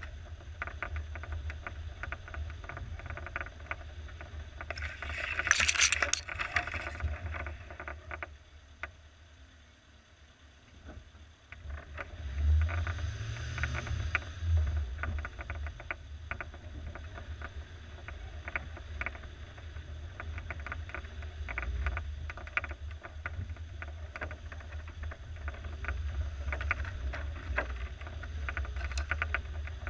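Suzuki SJ413's 1.3-litre four-cylinder engine running at low revs as the 4x4 crawls over rough trail, with frequent knocks and rattles from the body and suspension. A brief loud rushing scrape comes about five to seven seconds in. The engine drops nearly quiet for a few seconds around ten seconds in, then pulls louder again.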